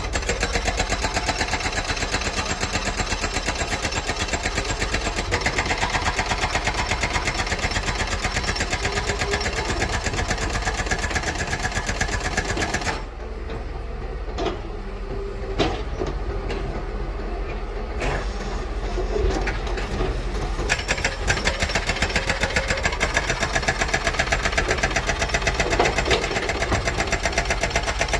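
Diesel engine of a Doosan 255LCV crawler excavator running hard with a fast, even pulse. About halfway through it eases off for several seconds, with a few sharp knocks, then builds back up to full running.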